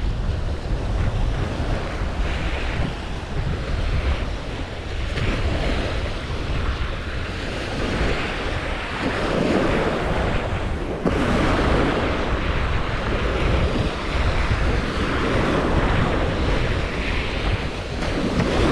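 Surf breaking and washing on a sandy beach, with wind buffeting the microphone in a steady low rumble. The surf swells louder a little past halfway.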